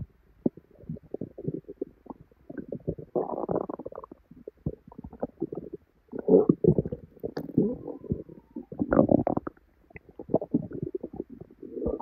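Bloated stomach bubbling and gurgling in irregular runs of squelches and pops with short pauses between them, the loudest gurgles a little past halfway and about three-quarters through. The bubbling comes with painful bloating after a salad.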